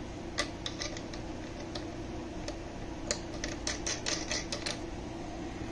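Small metal clicks and taps from a screw and terminal hardware being handled and fitted on a metal-cased power inverter, a few about half a second in and a quicker cluster from about three seconds, over a steady low hum.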